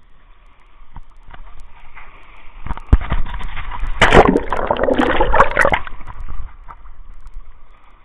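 Shallow surf water splashing and sloshing around a lemon shark held by the tail for release. Just before three seconds in there is a sharp knock, then a loud, muffled churning and gurgling of water with the microphone under water, for about three seconds, before it dies back to gentle sloshing.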